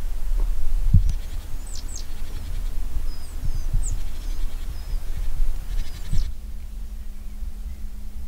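Open-field ambience: a low rumble of wind on the microphone with a few soft thuds, and several short high bird chirps and calls in the first half.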